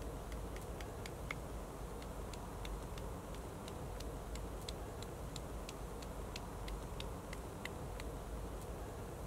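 Wood fire crackling, with many small, sharp pops spread irregularly, a few each second, over a steady low background noise.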